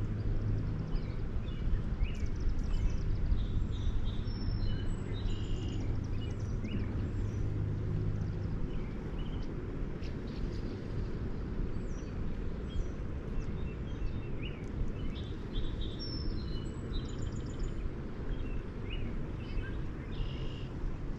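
Outdoor creek ambience: a steady low rumble of wind or moving water with a low hum that fades out about eight seconds in, and scattered short bird chirps throughout.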